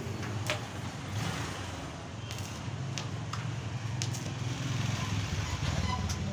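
Stick (arc) welding on a metal gate frame: the arc crackles and sizzles steadily with scattered sharp pops, over a low steady hum.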